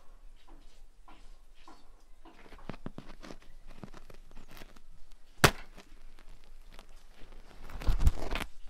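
Baked bread being pulled out of a clay tandoor with an iron hook: scattered scrapes and small knocks, a sharp knock about halfway through and a louder scraping bump near the end.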